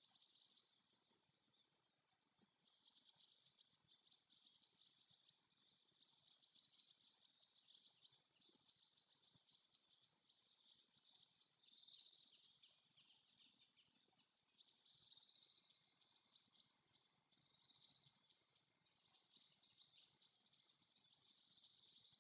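Faint recorded forest ambience: small birds chirping and trilling high and fast, with insects, and a brief lull about a second in.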